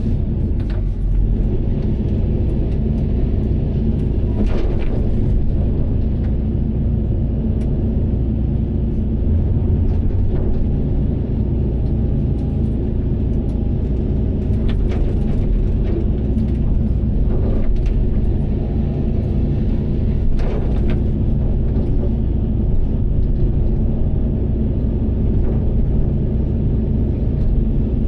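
Tracked excavator's diesel engine running steadily, with a few short cracks and knocks from the machine working through brush.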